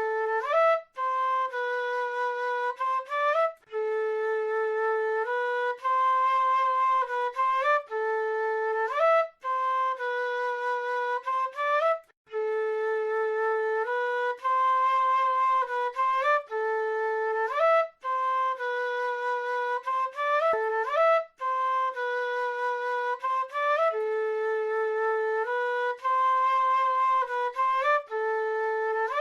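South American flute playing a slow solo melody in short phrases, separated by brief pauses, with notes sliding upward into one another.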